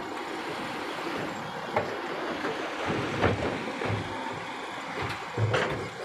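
Dump truck running with its bed raised as soil and rocks slide out of the tipper, with a steady rushing noise and a few heavy thumps, the loudest near the end.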